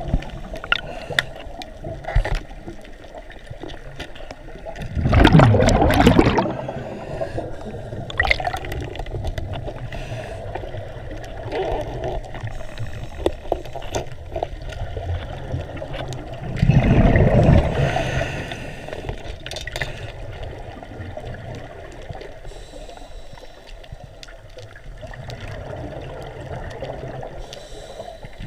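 Underwater sound through a diver's camera housing: a steady watery hiss with scattered sharp clicks, and two louder gushing surges of water noise, about five seconds in and again about seventeen seconds in.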